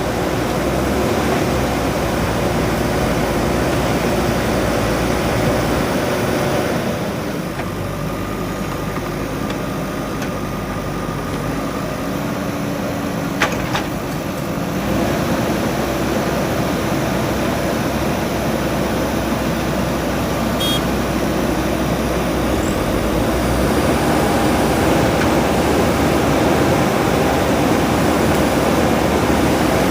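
JCB 3DX backhoe loader's diesel engine running steadily, easing down for several seconds partway through and then picking up again, with a single sharp click about halfway.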